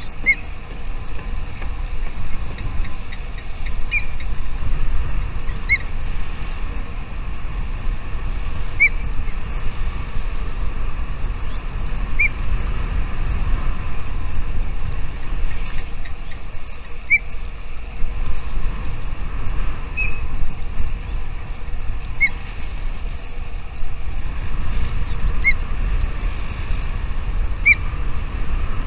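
A bird's short, high chirps, single notes repeating every two to three seconds, over a steady low rumble.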